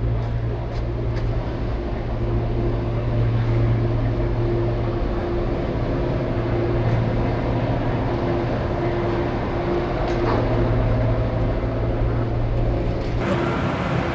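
Road traffic on a busy city avenue, with a steady low engine hum from vehicles close by. A louder rush of traffic noise comes in near the end.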